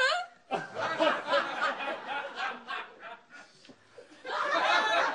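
People laughing on set: giggling and chuckling in short broken bursts, opening with a high rising squeal and swelling into a louder burst of laughter near the end.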